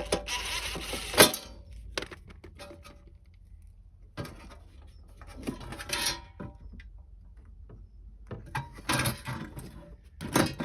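Hand work on the metal heater casing while its fasteners are being removed: clinks, scrapes and rattles of tools, screws and parts in three short bouts, with a sharp click about a second in.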